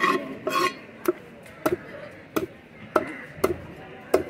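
Cleaver chopping a freshwater eel into pieces on a thick wooden chopping block: a steady run of sharp chops, about three every two seconds, each blade strike going through the eel into the wood.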